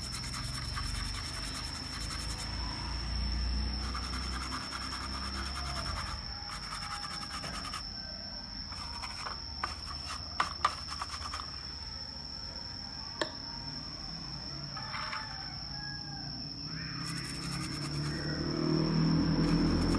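A small brush scrubbing a laptop motherboard in spells of quick strokes while the board is cleaned, with a few sharp clicks near the middle, over a steady high-pitched whine.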